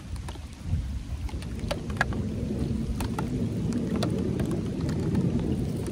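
Rain falling, with scattered drops ticking sharply close by at irregular moments over a steady low rumble.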